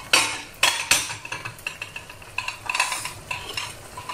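Glass bowls and plates knocking and clinking on the counter as they are handled: a few sharp knocks in the first second, then a run of lighter clinks. Under them is a faint sizzle of food frying in the pan.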